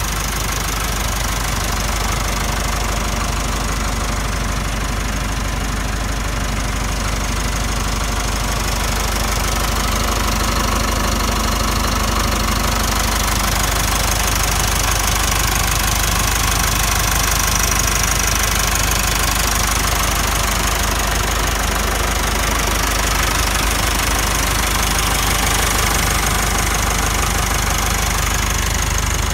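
Massey Ferguson 383 tractor's four-cylinder Perkins diesel engine idling steadily.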